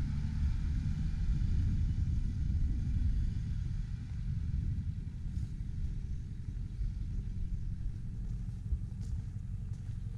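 1998 Freightliner FLD 120 SD dump truck's diesel engine idling: a steady low rumble, a little quieter after about four seconds.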